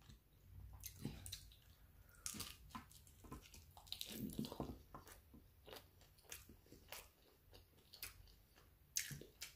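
A person biting into and chewing a taco, heard as faint, irregular mouth clicks and smacks. A louder bite comes about four seconds in.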